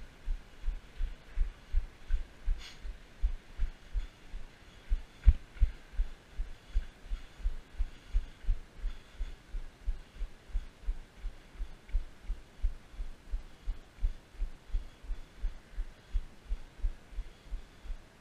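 A runner's footfalls: dull, low thuds in a steady rhythm of about three a second, with one heavier thud about five seconds in.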